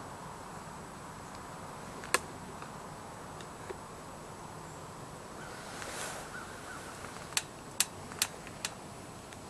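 Quiet outdoor background with a single sharp click about two seconds in, then four sharp clicks in quick succession near the end.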